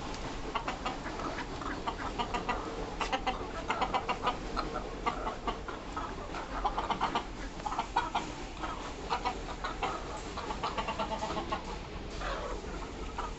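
Chickens clucking in quick runs of short repeated notes over a steady low background hum.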